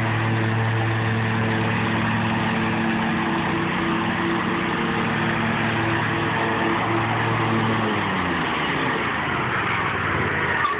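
Exmark Lazer Z zero-turn mower's engine running at a steady pitch under a constant rushing noise; about eight seconds in, the engine note falls away as it slows, while the rushing noise goes on.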